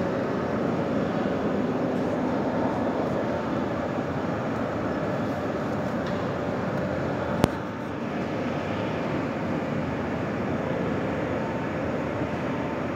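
Steady drone of running factory machinery, an even noise with a faint hum. A single sharp click comes about seven and a half seconds in.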